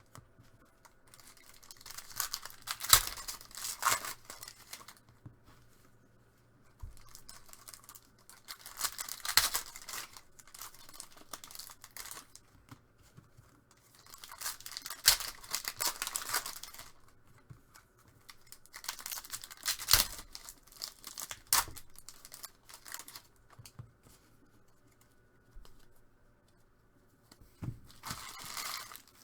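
Trading card packs being ripped open one after another: wrappers tearing and crinkling in about five short bursts a few seconds apart, with quieter handling between them.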